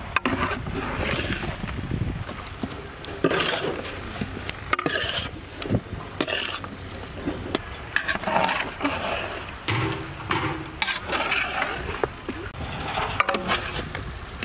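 A metal ladle scraping and stirring chicken pieces through thick masala paste in a large steel cooking pot, in irregular strokes with occasional knocks against the pot.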